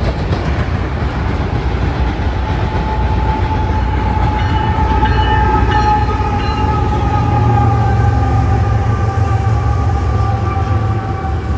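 A BNSF freight train's diesel locomotives passing close by, engines running with a steady low rumble. A whine from the units falls slowly in pitch as they go by.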